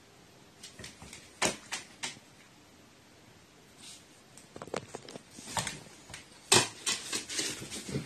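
A pet crow bathing, splashing and flicking water in short, scattered bursts: a few single splashes early on, then a quicker flurry of them in the second half.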